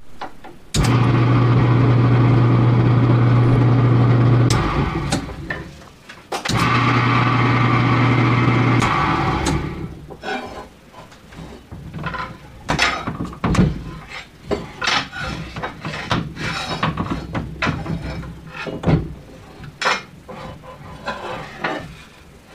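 1960s Dayton 1/3 HP, 1725 RPM electric motor driving a 1950s Craftsman King Seeley lathe through a V-belt and step pulley. It is switched on about a second in, runs with a steady hum for about four seconds and winds down, then runs again for a couple of seconds from about six and a half seconds and winds down. After that come scattered knocks and clicks as hands work the belt and motor.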